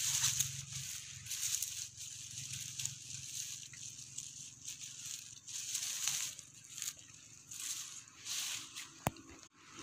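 Irregular rustling and crunching of dry leaves and brush, in uneven surges, with one sharp click near the end.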